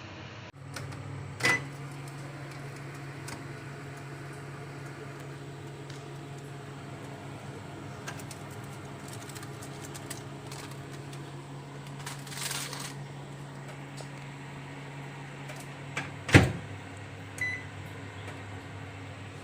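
Microwave oven running with a steady hum. There is a click about a second and a half in, and a loud clunk about 16 seconds in, after which the hum changes.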